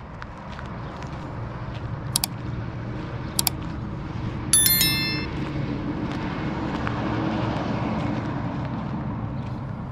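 Engine rumble of a motor vehicle passing at a distance, swelling to a peak about three-quarters of the way through and then fading. Two sharp clicks come before it, and about halfway through there is a brief high ringing sound, the loudest moment.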